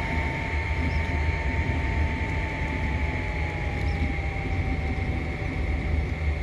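Longer LK1 3D printer running mid-print, its part-cooling fan whirring over a steady low hum. From about two seconds in, the fan's whine slowly drops in pitch as the fan speed is turned down.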